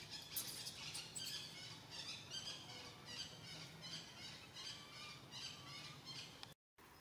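Baby macaque squealing in a run of short, high-pitched cries, about two or three a second, as it is kept from nursing.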